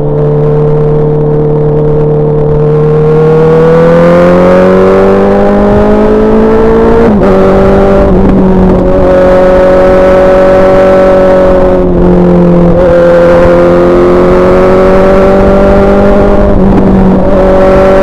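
Honda CBR650R inline-four engine running through an SC Project SC1-R exhaust under way, its pitch climbing steadily under throttle. About seven seconds in it breaks briefly and settles a little lower, a gear change, with shorter dips near twelve and seventeen seconds.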